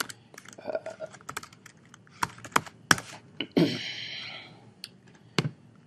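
Laptop keyboard keystrokes and clicks, a scattered run of separate taps, with a short breathy sound about three and a half seconds in.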